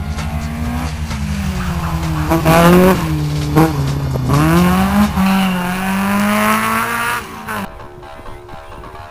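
Rally car engine revving hard at full throttle as it passes, its pitch climbing and falling again and again through the gear changes. The engine sound drops away sharply near the end.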